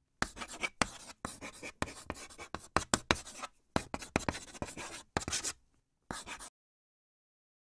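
A pen writing on paper: a quick series of scratchy handwriting strokes with short gaps, then it stops abruptly.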